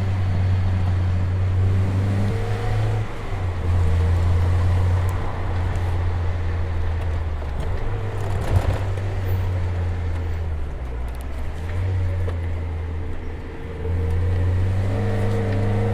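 1991 Mazda Miata's 1.6-litre four-cylinder engine heard from inside the cabin while driven hard through corners, its note stepping and easing off twice as the throttle changes. A short knock about eight and a half seconds in.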